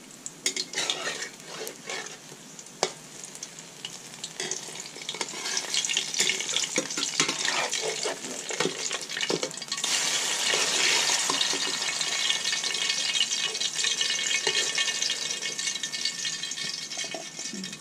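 Banana slices sizzling in hot oil in a wok, with a metal spatula clicking and scraping against the pan. The sizzling grows louder about ten seconds in.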